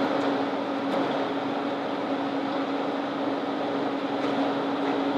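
Steady background hum and hiss with one constant low tone, unchanging throughout: mechanical room noise.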